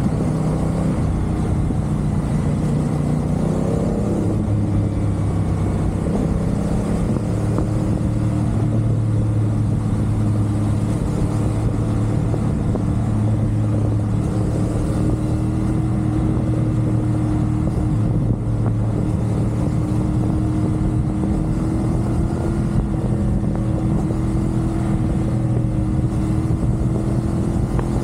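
CFMoto 450SR's parallel-twin engine running at a steady cruising speed over wind and road rush. About four seconds in its pitch shifts briefly, as with a throttle change, then holds nearly even.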